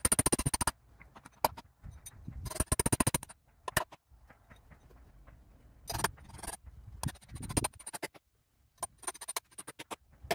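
Several short bursts of rapid clicking, like a ratchet, with scattered single knocks and scrapes, as clamps and hand tools are worked on a clamped timber beam.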